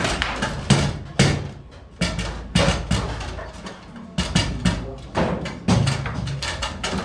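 Foosball table in play: about a dozen irregular sharp clacks and knocks as the rod figures strike the ball, the ball hits the table walls and the rods bang in their bearings.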